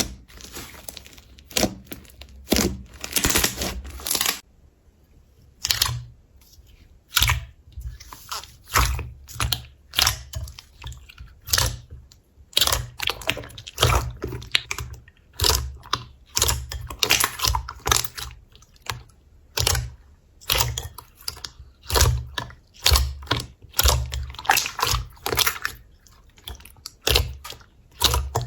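Slime being pressed and poked by hand, giving an irregular run of short crackling clicks and pops, several a second, with soft low thuds.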